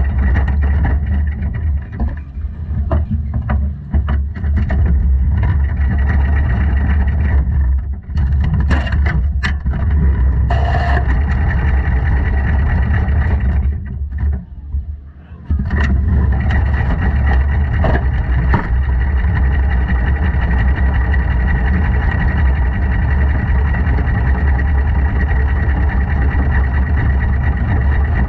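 Quarter midget race cars' single-cylinder Briggs & Stratton Animal engines running hard on track, a steady, loud engine drone with a heavy low rumble. It dips briefly twice, about eight and fifteen seconds in.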